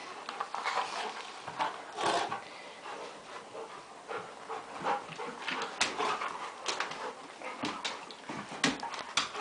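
Two puppies play-fighting: bursts of growling, whimpering and yips mixed with scuffling and sharp clicks of claws and teeth.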